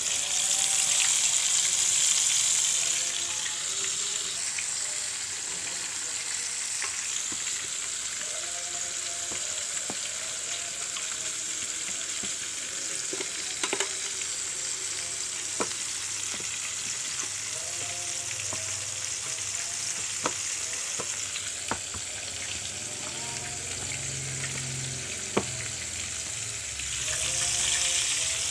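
Flour-coated chicken pieces frying in hot oil in a pan: a steady sizzle that is loudest in the first few seconds and swells again near the end. A few sharp clicks sound in the middle.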